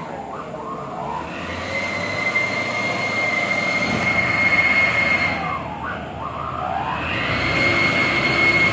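Heavy vehicle working hard, with a rumble under a steady high-pitched squeal. The squeal breaks off for about a second midway and then comes back.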